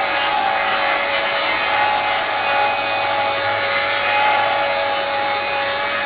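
FLEX FX2141R 24-volt brushless rear-handle circular saw with a 7-1/4-inch blade, cutting a 45-degree bevel through lumber under steady load. The motor's pitch holds even, with no bogging.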